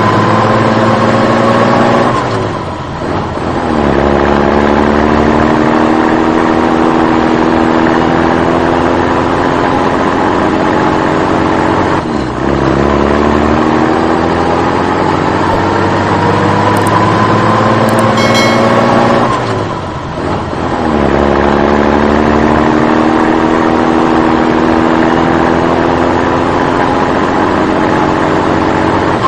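A motor vehicle's engine accelerating through the gears: its pitch climbs slowly, then drops sharply at each gear change, three times, and climbs again.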